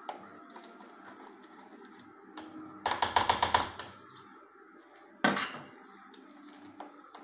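Metal spoon stirring a thick coconut flour dough in a plastic bowl. About three seconds in there is a quick rattle of eight or so clicks of the spoon against the bowl, and about two seconds later a single sharp knock.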